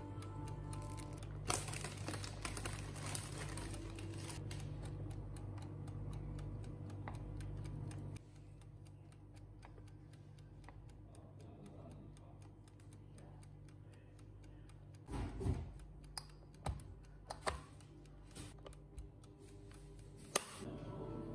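Light taps and clicks from handling food in an electric sandwich maker as a filled wrap is folded. They are followed by a cluster of sharper knocks and clicks in the last few seconds as the lid is shut and the timer knob is turned.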